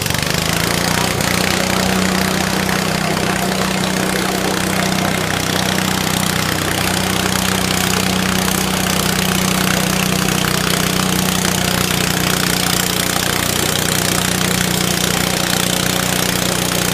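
Garden tractor engine running flat out at a steady pitch while pulling a weight sled, with no change in engine speed throughout.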